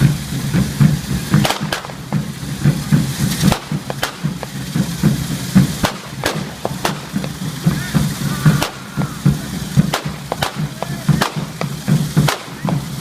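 Ground-level fireworks: sharp firecracker bangs about every second, over a steady, fast low drumbeat.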